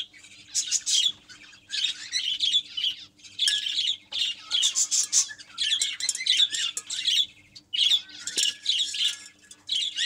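A flock of small cage birds chattering and squawking, a near-continuous run of high chirps with short gaps.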